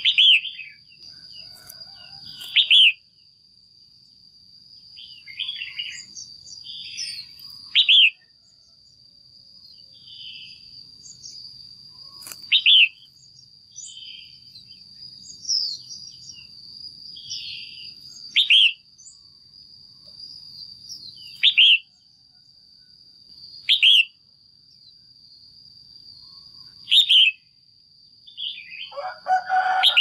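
Female red-whiskered bulbul calling: short, loud, sharp calls that drop in pitch, about eight of them a few seconds apart, with softer chattering notes between and a fuller call near the end. A steady high-pitched whine runs underneath.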